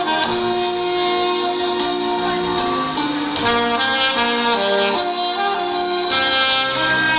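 Saxophone playing a slow melody of held notes over an accompaniment.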